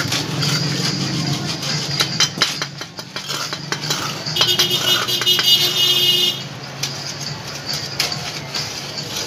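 Steel shovel scraping and digging into a pile of gravel on concrete, the stones clinking and rattling against the blade in quick irregular knocks. About halfway through, a steady high-pitched whine sounds over it for about two seconds.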